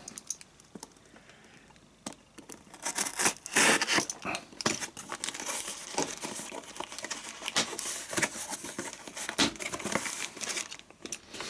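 Packaging being crinkled and torn as a box is opened and unpacked. After a quiet start of about two seconds come busy crackling and rustling with sharp clicks.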